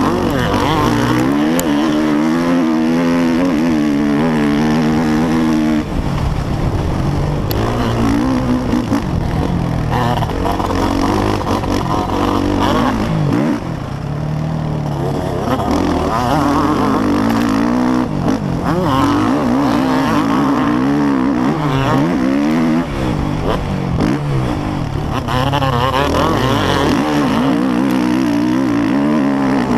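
Motocross dirt bike engine heard close up from the rider's helmet camera, revving up and down over and over as the rider accelerates, shifts and backs off the throttle. The throttle is cut briefly a few times, about 6, 14 and 23 seconds in.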